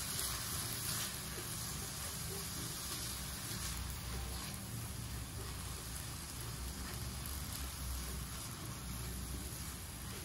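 Minced meat and onions sizzling with a steady hiss in a hot stainless-steel wok while being stirred with a silicone spatula.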